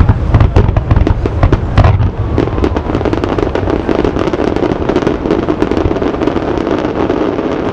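Fireworks display: a quick string of heavy booming bursts for about two seconds, then a dense barrage of many small shells popping and crackling together.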